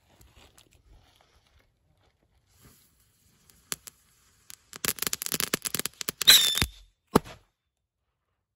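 Black-powder firecracker (PyroFactory Kamikaze) burning off with a rapid run of crackling pops and a brief whistle for about two seconds, then one sharp bang. The bang is quiet for a firecracker, the mark of the black-powder version rather than the louder BKS one.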